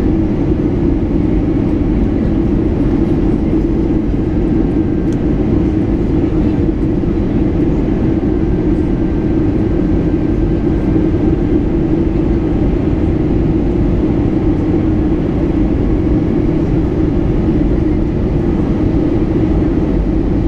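Steady cabin noise of an Airbus A320neo descending on approach: a constant low engine drone with rushing airflow, heard from a window seat.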